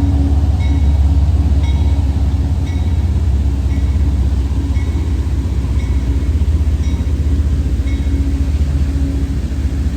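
A CSX freight train rolling past: a steady, loud low rumble of locomotive and railcars. A short bell-like ding repeats about once a second over it and stops near the end.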